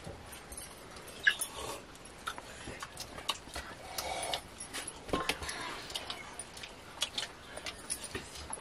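Scattered light clinks and taps of metal bowls, cups and spoons being handled during a meal.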